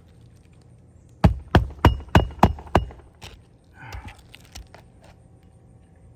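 Six quick, sharp hammer blows, about three a second, each with a slight ring: a hammer driving roofing nails through an asphalt shingle, followed by a few lighter taps.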